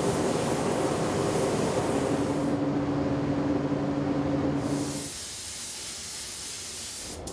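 Gravity-feed air spray gun hissing steadily as it sprays paint, with a steady low hum underneath. The hiss eases off about five seconds in and stops abruptly near the end.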